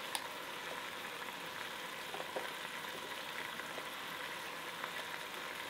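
Glass pot of pork frying on a portable stove, a faint steady sizzle, with a few soft taps as sliced squash and okra are dropped into the pot.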